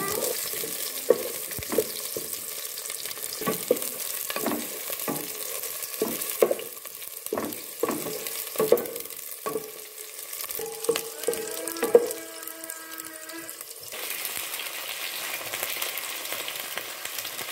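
Shallots and ginger sizzling in hot oil in an enamel pot, with a metal spatula scraping and clinking against the pot in irregular strokes. About 14 seconds in the clinking stops and the sizzle becomes a steadier, louder hiss.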